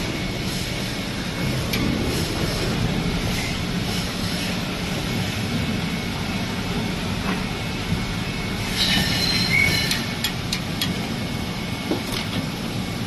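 Injection molding machine running with a steady low drone and a faint high whine. About nine seconds in comes a short burst of hissing and squealing with a few sharp clicks.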